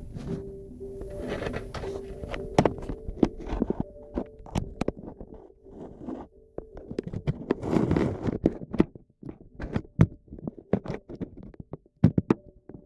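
A dog rubbing its back against the metal crossbar of a patio table: irregular knocks and rattles from the table frame, the dog's claws clicking on brick paving, and a longer scraping rub about eight seconds in.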